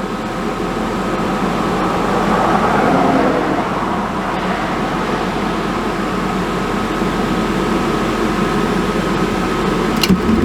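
Dometic RV furnace's blower fan running steadily during a light-off attempt, with a faint steady tone, under constant highway traffic noise. A single sharp click comes just before the end.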